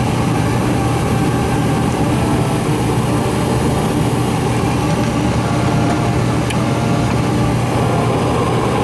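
Gas furnace running with its burners lit: a steady, even noise over a constant low hum.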